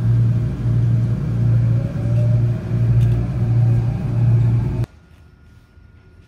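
Subway train running, heard from inside the car: a loud low rumble that pulses about every three quarters of a second, with a faint rising motor whine, cutting off suddenly about five seconds in. After that, a quiet room.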